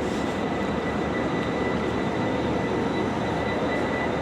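Diesel train idling at a station platform: a steady engine drone with a thin, steady high whine over it.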